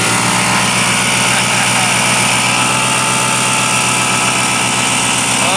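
Honda CG 125 single-cylinder four-stroke motorcycle engine, fitted as a boat motor, running steadily at an even speed.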